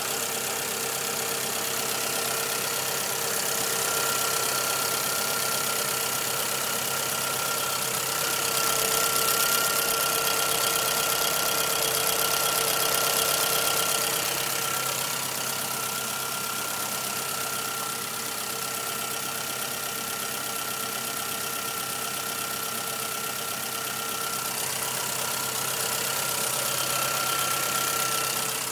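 1997 Suzuki Swift 1.3 L four-cylinder engine idling steadily with a ticking noise, growing a little louder for a few seconds partway through.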